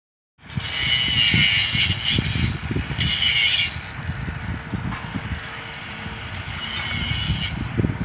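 Outdoor vehicle or machinery noise: a loud high hiss for the first few seconds, returning more faintly near the end, over a faint steady hum and irregular low rumbling bumps.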